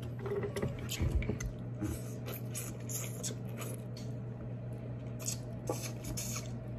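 Close-up eating sounds: crab legs being picked apart and the meat chewed, a run of short, irregular wet clicks and crackles. A steady low hum runs underneath.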